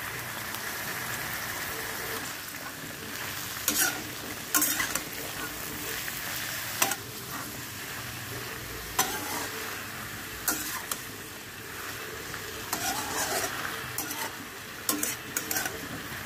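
Ridge gourd and potato pieces frying in mustard oil in an iron kadai, a steady sizzle, while a metal spatula stirs them, scraping and knocking against the pan now and then.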